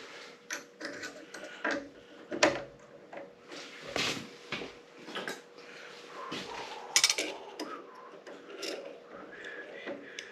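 Scattered metallic clicks, knocks and clatters of tooling being handled at a mini-lathe, such as a drill chuck and bits being set up for drilling, over a faint steady hum.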